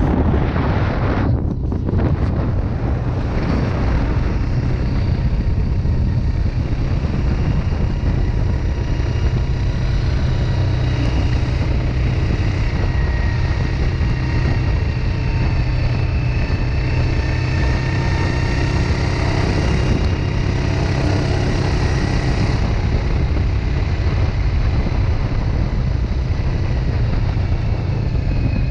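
ATV engine running steadily as the quad travels along at speed, with wind noise on the microphone.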